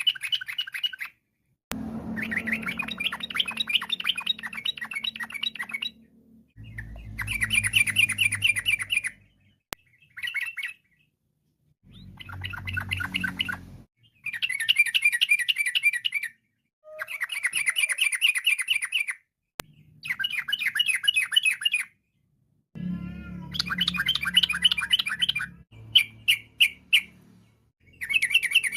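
Yellow-vented bulbul (trucukan) singing: a string of rapid, chattering trilled phrases, each two to four seconds long, with short pauses between them.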